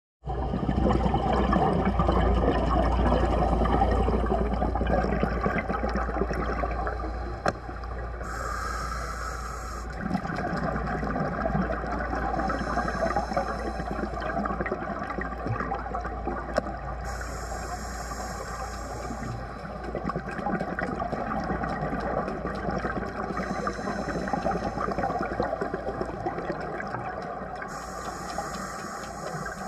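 Underwater sound picked up through a GoPro housing: a steady low rumble and wash of water, with a scuba regulator's breathing hiss and bubbles for about two seconds every four to five seconds. There are also a couple of sharp clicks.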